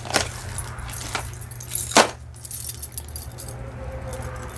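Metal costume jewelry jingling and clinking as pieces are handled, with a few sharp clacks, the loudest about two seconds in.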